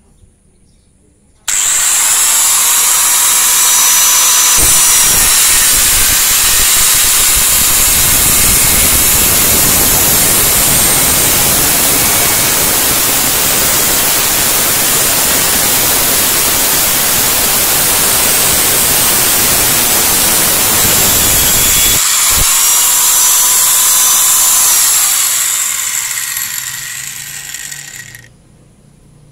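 Mailtank angle grinder mounted in a cut-off stand starts up about a second and a half in and cuts through a rusty steel pipe with an abrasive cut-off disc, a loud steady grinding. Near the end it is switched off and the motor winds down.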